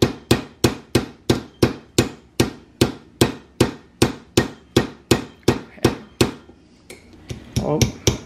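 Craftsman multi-hammer tapping a nail set through a dime onto a wine bottle's cork, in steady light strokes about three a second. The taps stop about six seconds in and resume briefly near the end.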